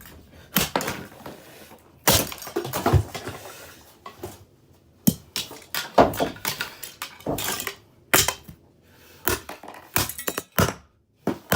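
About a dozen irregular blows on the plastic housing of a Dirt Devil race car vacuum, with thunks and cracking, rattling plastic as it is bent and broken.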